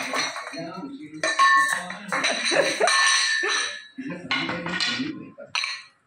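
Black-capped lory pushing and rolling a stainless steel tumbler across a tiled floor: the metal cup clatters and clinks, with a ringing tone as it knocks and rolls about a second in.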